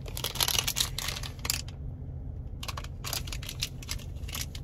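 Crinkly plastic snack packet crackling as it is handled, in two spells of quick crinkles with a short lull about two seconds in, over a low steady hum.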